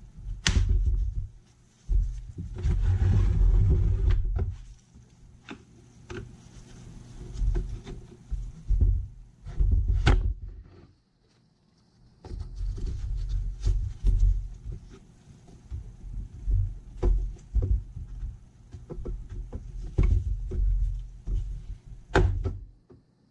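Plastic handle and case of a Dewalt cordless chainsaw being worked together and pried over an edge with a screwdriver: scraping, clicks and knocks of hard plastic, with dull knocks on a wooden workbench. A longer scrape comes about two seconds in.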